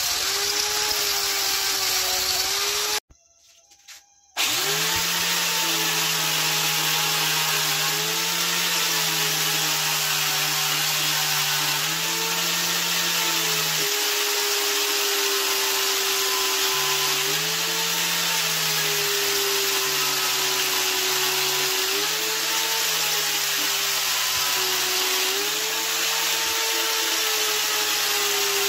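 Electric angle grinder running against the steel blade of an old file, first grinding with sparks, then sanding with a disc on a backing pad. It stops briefly about three seconds in and spins up again. Its motor note sags and recovers every few seconds as it is pressed onto the blade and eased off, under a steady grinding hiss.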